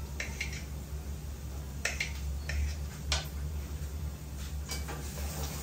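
Knife clicking against a ceramic plate as chicken liver is cut on it, a few separate clicks with the loudest about three seconds in, as the knife is set down on the plate. A steady low hum runs underneath.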